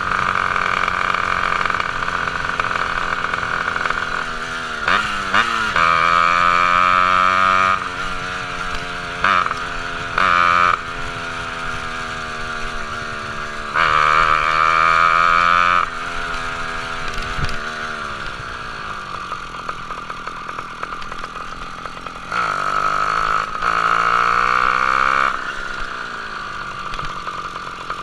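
Ported two-stroke half-breed motorized-bicycle engine without a reed valve, running while riding. The throttle is opened wide several times, each a loud stretch of one to three seconds, easing back to a quieter, lower note between; in the middle the pitch slides down for a few seconds as it slows.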